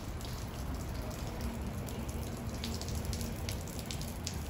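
Steady rain falling on a wet parking lot, with scattered drops ticking now and then.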